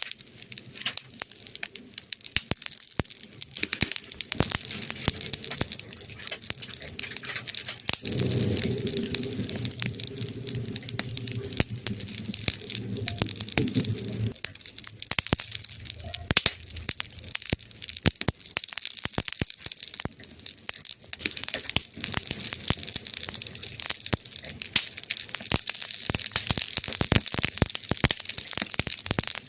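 Campfire burning, with wood crackling and popping continuously over a steady hiss. A low hum sounds under it for about six seconds in the middle.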